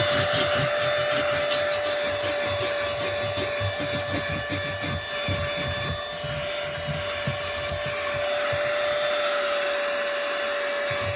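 Small handheld car vacuum cleaner running with a steady high motor whine, its nozzle rubbing and knocking as it is worked over surfaces. The rubbing eases off briefly near the end while the motor runs on.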